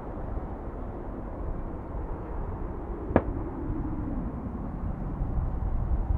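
Jet airliner engine noise growing louder over a steady low rumble, with one sharp click about three seconds in.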